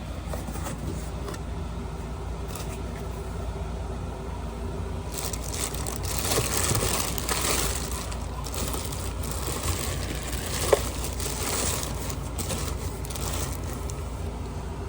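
Rustling and scraping of packaging being handled over a steady low rumble, with one sharp click about ten seconds in.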